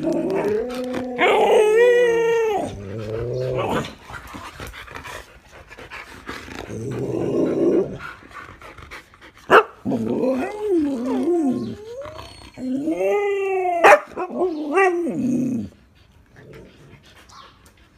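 Siberian huskies "talking" while begging for a treat: drawn-out howling and whining calls that slide up and down in pitch, in two long spells with a rougher, lower growl-like grumble between them. Two sharp clicks stand out, one in the middle and one near the end of the second spell.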